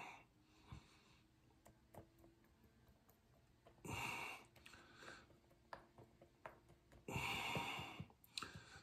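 A man's breathing: two heavy, noisy exhalations, about four seconds in and again about seven seconds in, with a few faint clicks in between.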